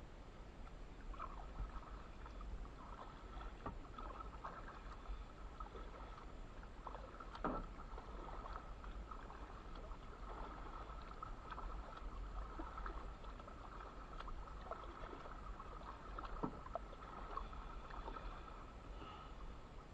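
Kayak paddle strokes through calm water: the blades dipping and pulling, with water dripping off them and many small, sharp splashes. The loudest splash comes about seven and a half seconds in.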